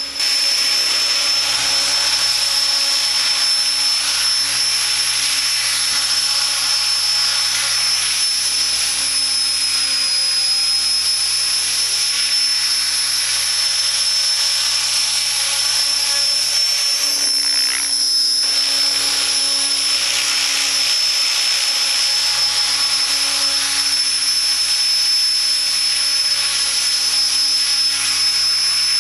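Electric radio-controlled helicopter (Align T-Rex 600 ESP) flying: a steady high-pitched whine from its brushless motor and drive gears over the rush of the rotor blades. The whine's pitch sags slightly about ten seconds in.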